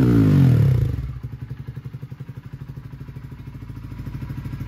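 Honda CBR125R's single-cylinder four-stroke engine running through a full Scorpion aftermarket exhaust. It falls back from a rev in the first second, then settles into a steady, pulsing idle.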